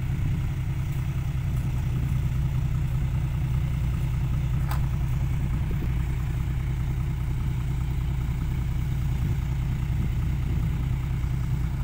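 Dump truck's diesel engine idling steadily, a constant low hum.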